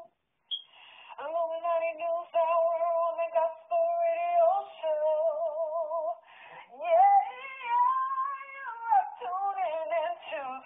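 Music with a high sung vocal line, its notes held and wavering, starting after a brief gap about half a second in.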